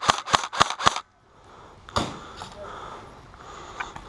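Airsoft rifle firing rapid single shots, about four a second, which stop suddenly about a second in; a single sharp crack follows about a second later.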